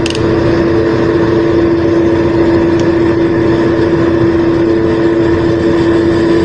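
Window-type air conditioner with only its fan motor running: a steady hum over the rush of air. The compressor has not yet started.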